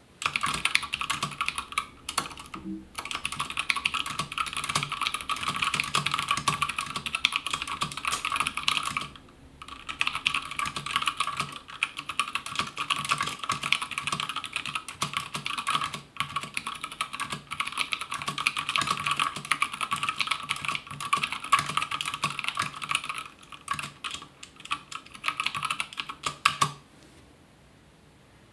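Fast, continuous typing on a WhiteFox mechanical keyboard fitted with Zealios tactile switches and HyperFuse keycaps: a dense run of key clicks and clacks with a few brief pauses, stopping shortly before the end.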